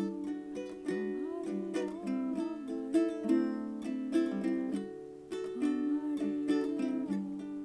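Background music on a plucked string instrument, many notes picked in quick succession, with a brief dip about five seconds in.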